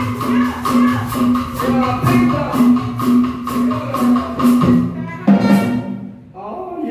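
Dance music with a steady beat of about two strokes a second. About five seconds in the beat stops on a held final note that fades, and another tune starts near the end.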